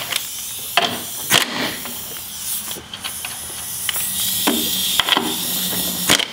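Impact wrench loosening the strut-top mounting nuts on a front strut tower, running in short bursts of rattling strikes over a steady hiss. A steadier hum sets in about two-thirds of the way through as it spins on the next nut.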